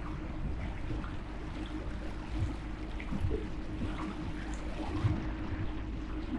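Small boat on a lake: a steady low motor hum with rumble, and small splashes of water against the hull.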